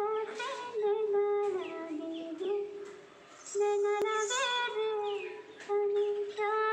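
A woman singing long held notes that bend and turn in slow ornaments, pausing briefly about three seconds in before the line resumes.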